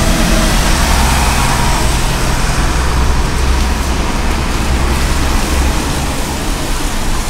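Town-centre road traffic: a steady hiss with the low engine rumble of passing vehicles, heaviest at the start and again about four seconds in.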